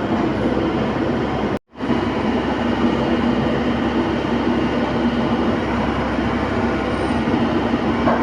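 Excavator's diesel engine running steadily with a loud, even mechanical din; the sound cuts out for an instant about one and a half seconds in, then carries on unchanged.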